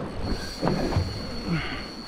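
Fishing reel's drag whining steadily as a hooked fish takes line, a thin high-pitched squeal over low knocks and wind noise.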